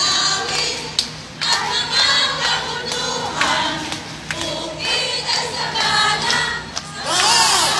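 A large crowd of many voices singing together. Near the end a loud shrill sound rises above the singing.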